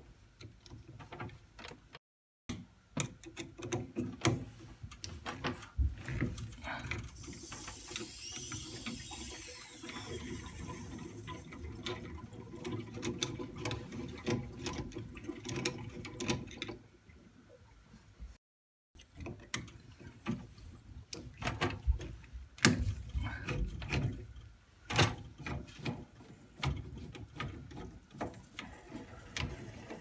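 Screwdriver undoing the Torx screws on a Grundfos boiler circulating pump: irregular small clicks and metallic knocks of the driver and screws, with a soft hiss for a few seconds about a third of the way in.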